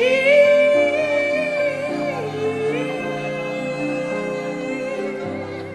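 Slow worship music: a singer holds a long wavering note over steady sustained chords. The note dips about two seconds in and rises again a second later.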